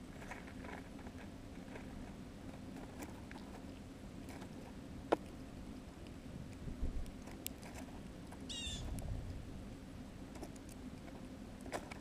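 Faint taps and clicks of a European starling moving about and pecking at seed on snow close to the microphone, with one sharp click about five seconds in and a few soft bumps. One short chirping bird call about two-thirds of the way through.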